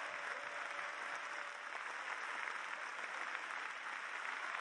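Large stadium crowd applauding, a dense, steady clatter of many hands clapping.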